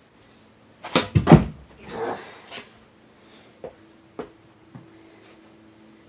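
Skateboard deck without trucks slapping and clattering onto carpet during a flip-trick attempt. A quick cluster of hard knocks comes about a second in, then a brief scuff, and a few lighter taps follow later.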